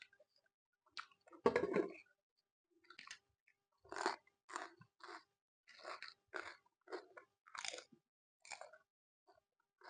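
A person chewing a mouthful of Maggi instant noodles with vegetables and egg: a louder bite about a second and a half in, then chewing about twice a second.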